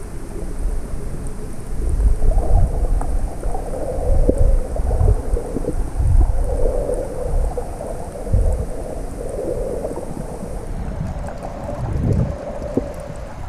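Muffled underwater sound picked up by a camera held below the surface: a low, uneven rumble of water moving around the housing that swells and eases, with faint ticks above it.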